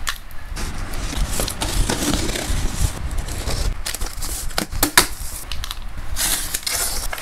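A cardboard shipping box being opened: packing tape slit with a folding knife and the cardboard flaps and inserts handled, an irregular run of crackles, scrapes and clicks, with a sharp click about five seconds in.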